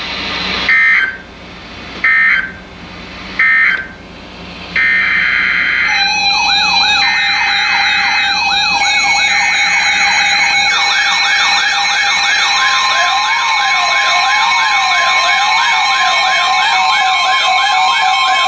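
Three short screechy EAS digital data bursts marking the end of the warning message. From about five seconds in, several electronic siren tones sweep up and down at once over steady tones, running on without a break.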